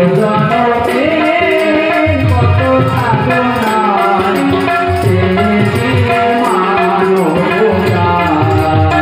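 Bengali Baul folk song performed live: a man singing into a microphone over hand-drum and instrumental accompaniment.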